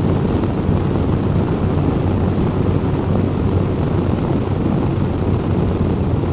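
Touring motorcycle riding along at road speed: a steady low rumble of engine and wind rush on the bike-mounted microphone.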